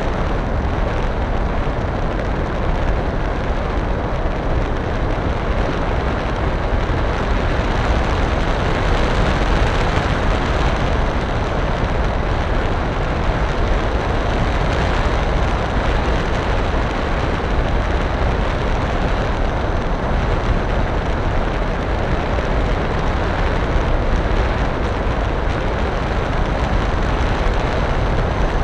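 Steady rushing noise of airflow and motor on the onboard camera microphone of a radio-controlled FPV model aircraft in flight, loud and unbroken.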